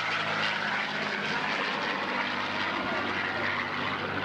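Fixed-wing airplane engine running steadily overhead at an air show, a continuous drone.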